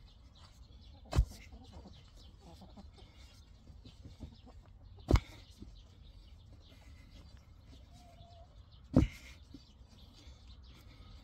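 A steel rebar rod driven down into garden soil to punch holes for tomato stakes, giving three sharp strikes about four seconds apart. Birds call faintly in the background.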